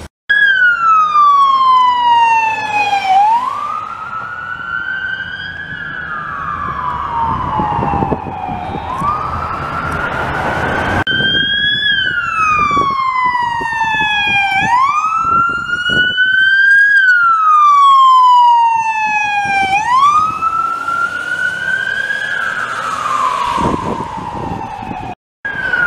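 Police car siren wailing, its pitch gliding slowly down and then back up about every three seconds. The sound breaks off briefly about eleven seconds in and again near the end.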